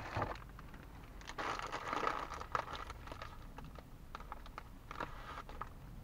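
Crinkling of a plastic-wrapped packet of tissues being handled to pull out a tissue, loudest about one to three seconds in, then a few small scattered clicks and rustles.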